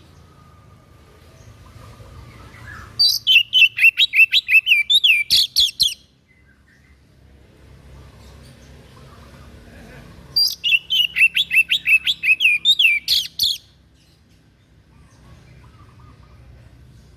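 A songbird, the 'white-breast' of the title, singing two bursts of quick, repeated high chirping notes, each burst about three seconds long, with a pause of several seconds between them.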